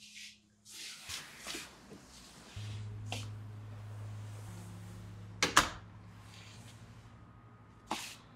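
Several sharp clicks and knocks of an apartment door and its lock being handled, the loudest a double clack about halfway through, over a low steady hum that starts a few seconds in.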